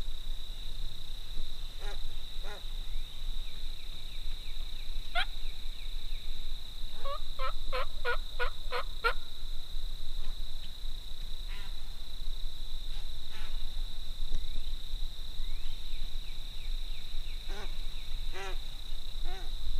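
Wild turkey yelping: scattered single yelps, with a run of about seven evenly spaced yelps around seven to nine seconds in, over a steady high-pitched drone.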